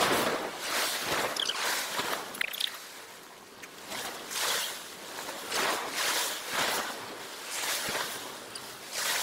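Surf washing against a rock jetty, with a rustling swell about once a second.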